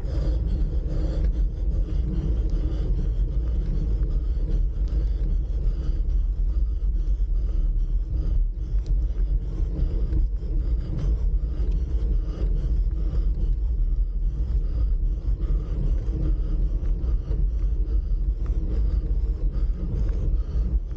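Steady low rumble of wind and road noise on the microphone while riding uphill, with no distinct events.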